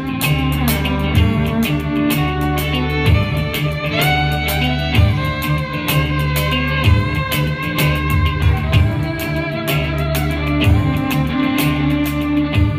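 A live band playing an instrumental passage: violin melody over electric guitar, electric bass and a drum kit with a steady beat. The melody slides up in pitch about four seconds in.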